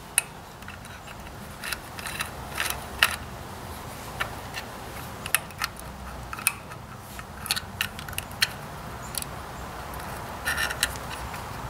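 Small metal clicks, taps and scrapes, spaced irregularly, as a screwdriver and fingers work the old breaker points and condenser loose from a Ford 800 tractor's distributor plate. A faint steady hum runs underneath.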